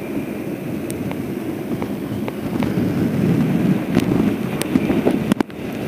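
Wind buffeting the microphone as a steady low rumble, with scattered small clicks and a brief dip in level near the end.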